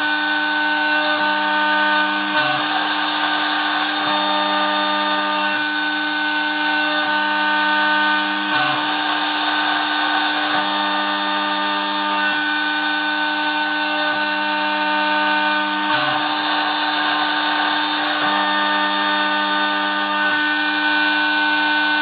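3040 CNC router milling aluminium with an end mill: a steady spindle whine over a cutting hiss, the lower tones dipping briefly every few seconds as the machine changes its moves.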